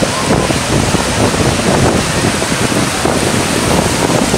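Ocean surf breaking and washing up the sand in a steady rush, with wind on the microphone.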